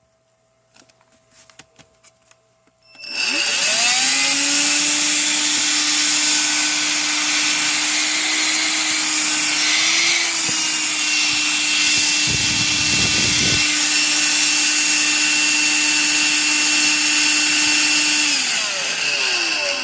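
Electrolux ZB3233B 18V cordless stick vacuum switched on after a few light clicks, its motor spinning up to a steady high whine and running for about fifteen seconds on its newly replaced lithium battery pack. Near the end it is switched off and the motor winds down.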